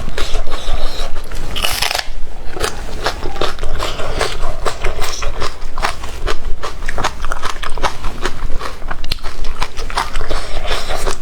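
Close-miked eating: biting and chewing with crunching and a dense, irregular run of sharp clicks.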